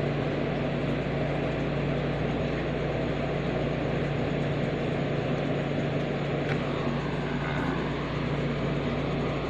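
A steady mechanical drone with a low, even hum, like an air conditioner or fan running.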